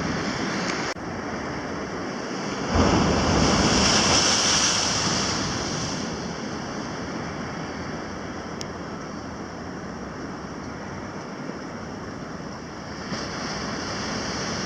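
Sea waves breaking and washing over the rocks of a stone jetty. A louder crash comes about three seconds in and fades over the next few seconds, and another wave rises near the end.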